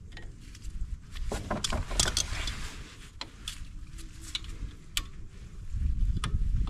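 Sharp metallic clicks and clinks of pliers working the small pins and clips of new brake shoes on a Honda Big Red 300's drum brake backing plate, a handful of separate clicks over a steady low rumble.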